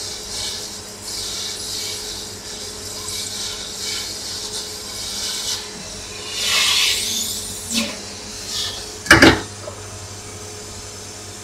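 Hot air rework gun blowing a steady hiss over a laptop logic board while a fuse is desoldered with tweezers. Metal tools scrape on the board about six and a half seconds in, a couple of light clicks follow, and a sharp knock just after nine seconds is the loudest sound.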